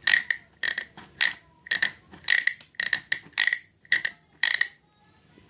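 Ratchet and pawl of an Electrolux washing machine's agitator mechanism clicking as it is worked back and forth: a run of sharp, ringing clicks, often in pairs, that stops about four and a half seconds in. This is the 'crec, crec' the machine makes while agitating in the wash cycle.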